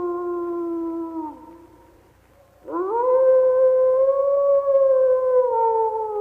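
Wolf howling: a long held howl fades out with a falling slide a little over a second in. After a short pause a new howl starts with a quick upward slide, then holds steady and sinks slightly near the end.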